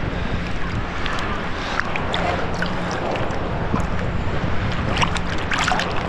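Shallow seawater sloshing and surging around a wading detectorist as a sand scoop digs out a target, with scattered sharp clicks, the loudest about five seconds in.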